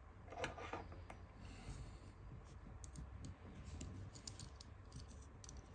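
Faint, scattered clicks and scrapes of a riflescope and its metal mounts being handled, with the mount screws being loosened.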